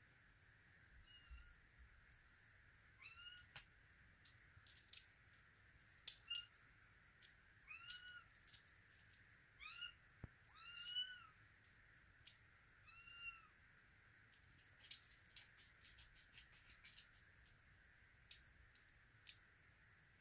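Russian Blue kitten meowing: about six short, high meows spaced a few seconds apart, each rising and falling in pitch. Sharp clicks and taps fall between them, in a quick cluster past the middle.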